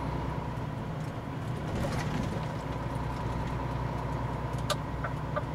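Semi-truck's diesel engine running steadily, heard from inside the cab, with a few faint clicks near the end.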